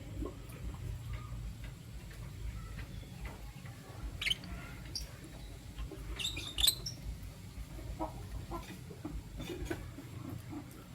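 Lovebirds giving short, high-pitched chirps: a single one about four seconds in and a quick cluster of several around six seconds, with fainter ones after, over a low steady hum.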